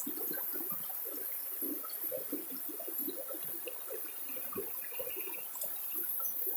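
Flowing water trickling and bubbling steadily, a dense run of small irregular gurgles.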